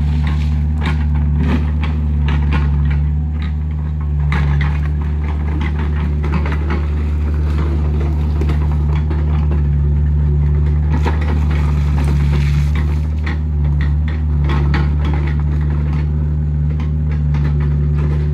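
Heavy diesel engine running steadily under load, with scattered knocks and crunching of rock and stone throughout.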